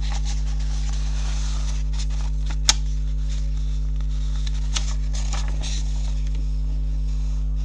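A sheet of A4 paper being folded in half and creased by hand: faint rustling and crackling of the paper, with a sharp click nearly three seconds in and a softer one nearly five seconds in, over a steady low electrical hum.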